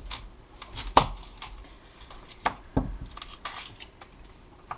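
Knife chopping an onion on a cutting board: a handful of irregular knocks, the loudest about a second in.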